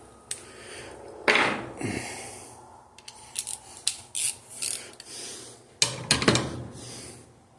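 Metal tools and engine parts being picked up and set down on a workbench: scattered clinks and knocks, two louder ones about a second in and about six seconds in, with a run of lighter clicks between.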